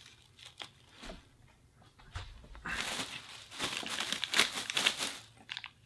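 Clear plastic packaging bag crinkling as it is pulled and bunched by hand. A few small clicks first, then a loud stretch of crinkling from about halfway.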